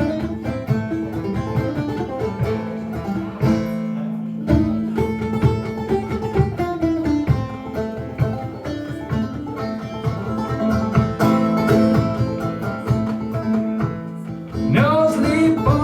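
Clawhammer banjo playing the instrumental lead-in of a folk song live, a steady plucked rhythm over a sustained low note, with a brief dip about four seconds in.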